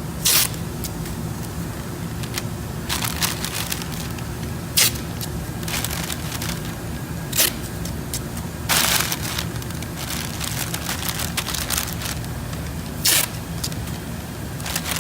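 Masking paper and tape handled around a headlight before painting: short, sharp crinkling bursts about half a dozen times over a steady low hum.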